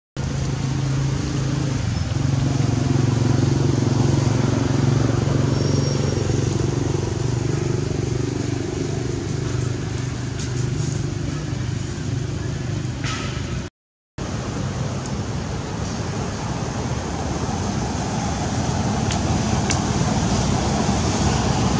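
A steady low motor hum over outdoor background noise. About two thirds through, the sound drops out briefly and comes back as a plainer steady hiss.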